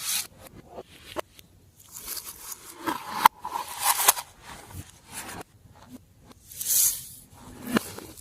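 Glossy slime being worked by hand, giving irregular sticky crackles, squishes and small pops, with a sharp click a little after three seconds in.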